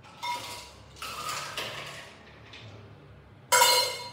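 Bar spoon clinking and scraping against a metal cocktail shaker tin, with a loud ringing metal clank of the shaker near the end.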